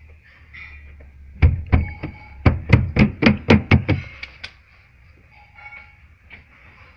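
A rapid series of about ten sharp knocks on a car's plastic interior side trim panel, struck by hand at three to four a second, starting a little over a second in and stopping at about four and a half seconds.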